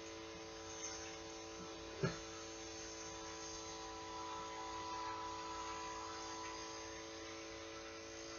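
Steady electrical hum with faint rustling of a plastic bag as a bladed fishing jig is worked out of it, and a short knock about two seconds in.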